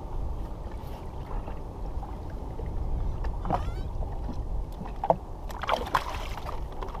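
Wind buffeting the action-camera microphone and water slopping against the jet ski's hull. Near the end there is a short splash as a hooked snapper is swung out of the water.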